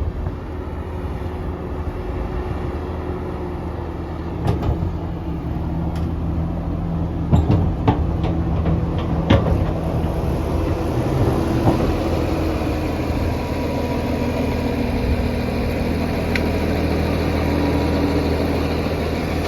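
Case 2050M bulldozer's diesel engine running steadily, with a series of sharp clanks and knocks from about four to ten seconds in.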